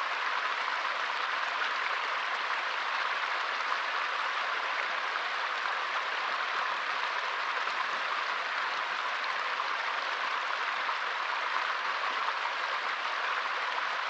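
Small forest stream flowing: a steady rush of running water.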